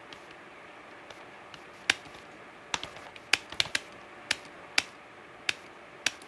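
Computer keyboard keys being pressed one at a time: about a dozen sharp, separate clicks at an uneven pace, clustered most closely a little past the middle, over a faint steady hiss.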